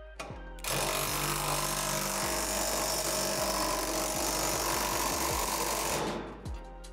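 Cordless power driver running steadily for about five seconds as it runs a bolt tight on the steel lifter and extension arms, then stopping.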